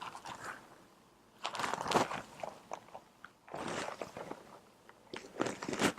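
Microphone rubbing against the fabric of a dress: scratchy rustling in three bursts, about a second in, in the middle, and near the end.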